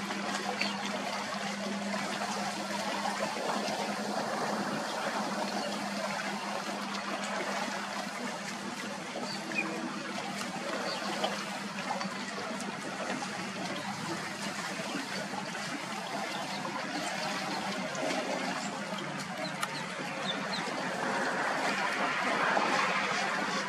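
Steady rushing outdoor noise, water-like, with a low steady hum beneath it and a few faint high chirps. It swells somewhat near the end.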